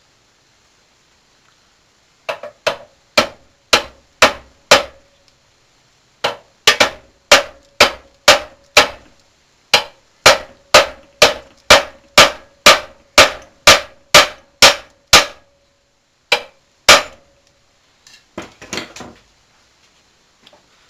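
Hammer tapping a steel key into the keyway of a Gravely snowblower's fan shaft: sharp metallic strikes at about two a second, each ringing briefly, in several runs with short pauses between, and two last harder blows near the end.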